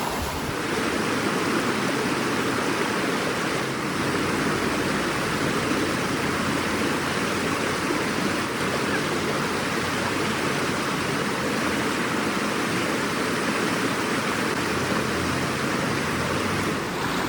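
Rushing river water running fast over rocks: a steady, unbroken rush.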